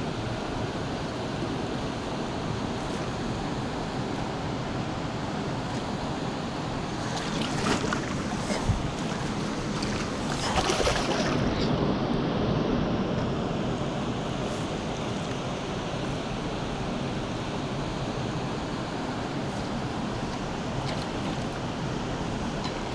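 Steady rush of flowing river water, with a few brief louder clicks and splash-like noises near the middle.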